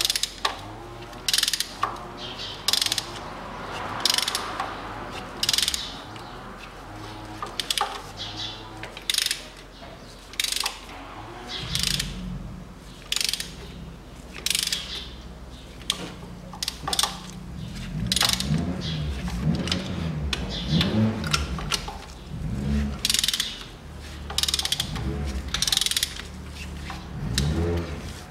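Ratchet wrench on a spark plug socket clicking in short bursts, about once a second, as a seized spark plug is rocked back and forth to work it loose.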